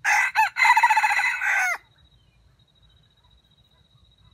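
Red junglefowl (wild jungle chicken) rooster crowing once. The crow is short, under two seconds, with a brief break near its start and a clipped, falling end.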